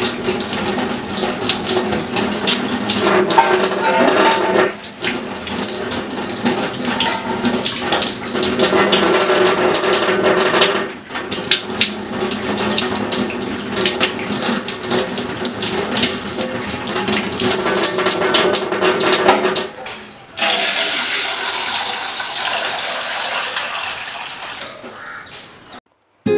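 Water running from a kitchen tap and splashing over hands into a steel sink, dropping out briefly a few times.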